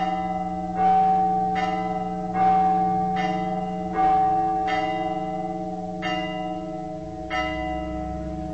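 Orthodox church bells struck in a steady series, about one stroke a second and spacing out near the end, each stroke ringing on and overlapping the next.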